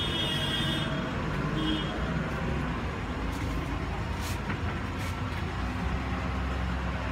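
Road traffic: a steady low rumble of passing vehicles, with a brief high-pitched tone in the first second.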